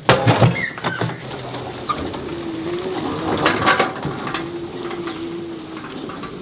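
Large aluminium cooking pots clanking together as one is lifted off another, then a vehicle engine running steadily.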